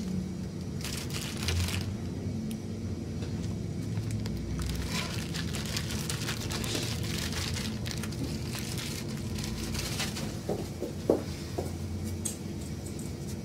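Plastic bag rustling and crinkling in irregular bursts as a small wrapped package is handled and pulled from a cabinet under a sink, with one short knock near the end. A low steady hum sits underneath.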